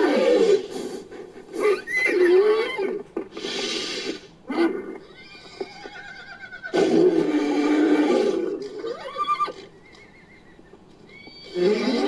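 Made-up dinosaur calls pieced together from horse neighs and whinnies: a string of separate cries, the longest about seven seconds in, then a short lull before another call starts near the end.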